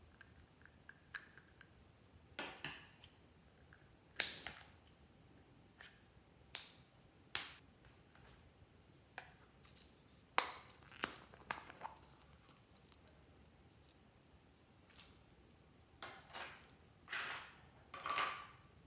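Scattered sharp clicks and taps from small plastic items being handled, the loudest about four seconds in, with a few short rubbing sounds near the end.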